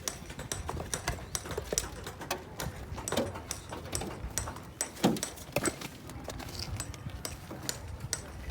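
Irregular hard clacks and knocks of foundation stones and hand tools being worked, several a second, with heavier knocks about three and five seconds in.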